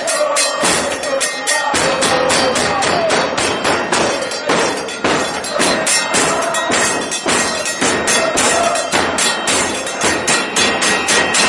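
Street band of bass drums (bombos) and mounted cymbals (platillos) from a football supporters' march, beating a fast, steady rhythm of drum strokes and cymbal crashes, with a crowd singing over it.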